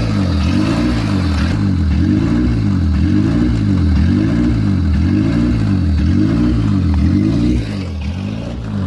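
Car engine idling with a rhythmic rise and fall in pitch, about one and a half swings a second. This is an unsteady, hunting idle, which the owner puts down to a bad idle air control valve.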